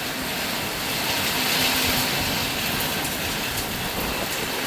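Heavy rain falling, a steady hiss that swells slightly about a second and a half in.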